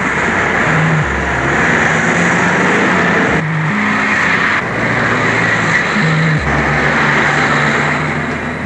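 Car engine and tyre noise on a wet road, steady and loud, over background music with held low notes that change pitch a few times.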